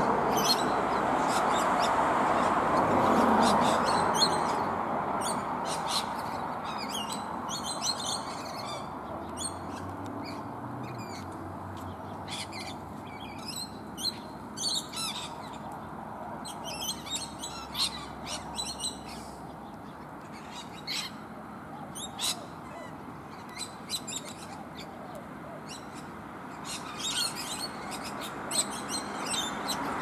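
Rainbow lorikeets calling from a flowering bottlebrush: many short, shrill screeches and chatters, coming in quick clusters throughout. Under them is a steady rushing background noise, loudest in the first few seconds.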